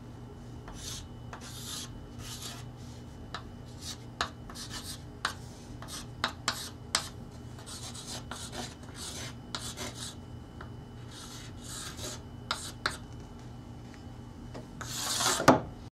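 Chalk writing on a chalkboard: a run of short scratchy strokes and sharp taps as the letters are formed. A longer, louder scrape comes near the end.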